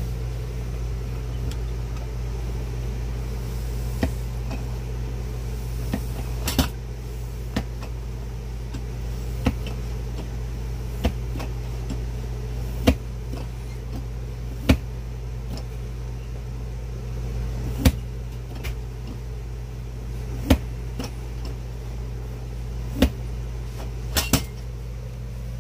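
Dual-barrel foot air pump being stepped on to charge an RV water accumulator with air, each stroke giving a sharp click every one to three seconds. A steady low hum runs underneath.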